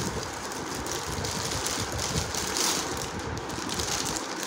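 Shiny plastic gift wrapping crinkling and rustling as it is handled, a continuous crackly rustle.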